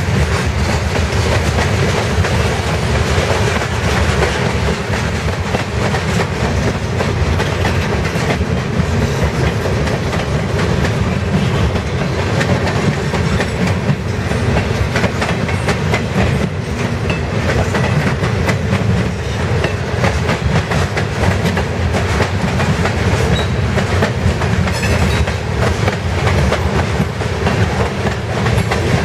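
Mixed freight train of tank cars and boxcars rolling past at close range: a steady noise of steel wheels on rail with frequent clicking as the wheels cross the rail joints.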